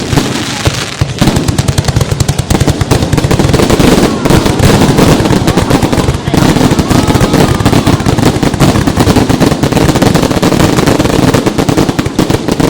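Fireworks going off in a dense, continuous barrage: many sharp bangs and crackles a second, loud throughout.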